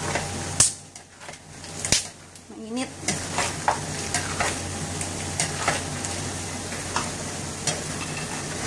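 Peanuts being stirred in a speckled nonstick frying pan on the stove: a utensil scraping through the nuts as they rattle against the pan, with two sharper knocks on the pan about half a second and two seconds in.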